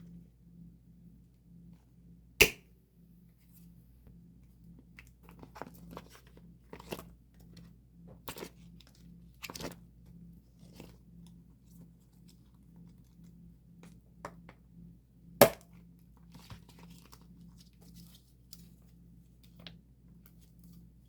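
Photocards and plastic sleeves being handled: scattered small clicks, taps and rustles, with two sharp clacks, one a couple of seconds in and one about two-thirds through. A steady low hum runs underneath.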